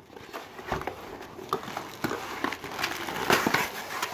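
Cardboard shipping box and a white plastic poly bag rustling and crinkling as they are handled and the bag is lifted out, with irregular small knocks, loudest about three seconds in.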